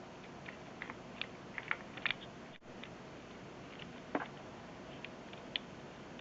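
Small irregular clicks and taps of a Daiwa Certate 2500 spinning reel's handle being twisted into the reel body while it finds its thread, with a slightly louder knock about four seconds in.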